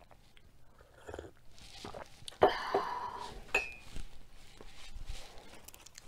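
Sipping and slurping coffee from a ceramic mug, with a sharp, loud sound about two and a half seconds in. About a second later the mug is set down on the table with a short ringing clink.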